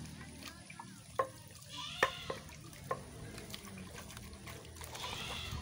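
Water splashing and trickling in a pot or basin, with a few sharp clicks and knocks along the way.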